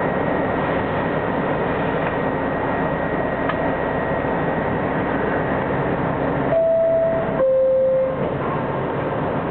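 Subway train running on the rails with a steady rumble. About two-thirds of the way through, two clear steady tones sound, a higher one and then a lower one, each just under a second.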